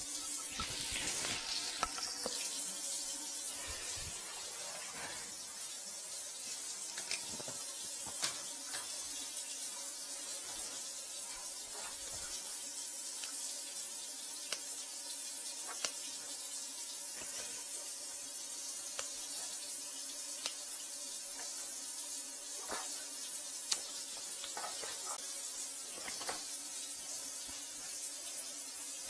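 Water running steadily with a hiss, with a faint steady hum beneath it and a few short sharp clicks.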